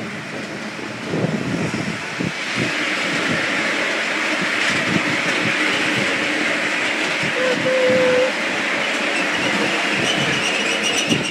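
Battery-powered miniature railway train running along the track and into a stone tunnel: steady wheel-and-rail rumble with scattered knocks, growing louder inside the tunnel. A brief squeal sounds about eight seconds in.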